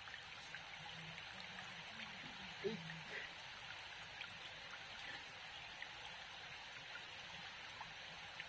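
Shallow rocky stream running with a steady faint trickle of water.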